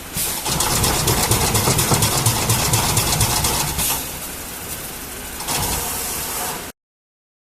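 Corrugated-box stitching machine running, its stitching head driving wire staples with rapid, evenly repeated strokes for several seconds. It drops to a quieter running hum, comes back briefly louder, then cuts off suddenly.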